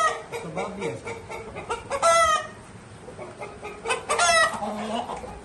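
Rooster calls: three short, loud calls about two seconds apart, the middle one the loudest.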